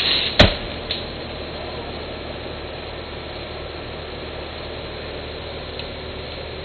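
A cut section of tree trunk crashing down, a short rushing swish ending in one sharp heavy thud about half a second in, with a smaller knock just after. A steady engine drone runs underneath.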